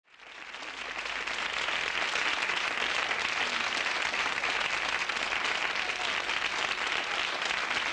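Studio audience applause, a steady dense patter of many hands clapping that fades in over the first second and then holds level.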